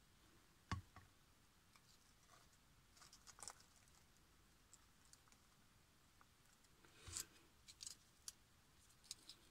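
Faint handling noises from paper crafting: a soft knock about a second in as the glue bottle is set down on the cutting mat, then light rustles and clicks as a paper rose is pressed onto the paper box.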